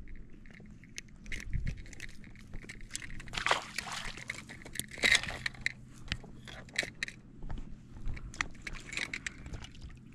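Scattered clicks, knocks and rustling of things being handled, with denser clusters about three and a half and five seconds in, over a faint steady hum.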